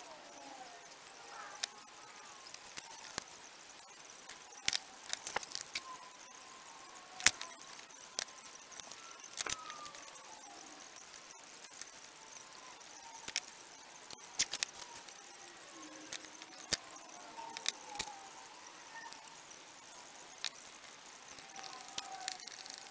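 Irregular sharp clicks and taps of small metal parts and tools being handled as an SU HIF6 carburettor is put back together, with a faint hiss and faint wavering tones in the background.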